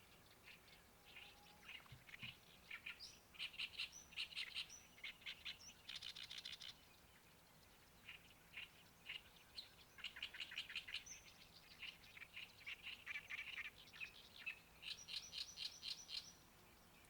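A songbird singing in two long bouts of rapid repeated chirps, with a pause of a couple of seconds between them.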